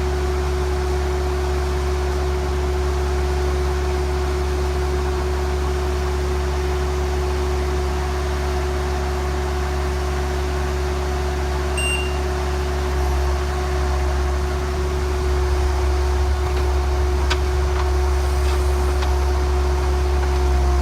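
Atlas Copco FlexiROC drill rig running steadily, not drilling: a low engine drone under a steady whine. A very short beep sounds about twelve seconds in.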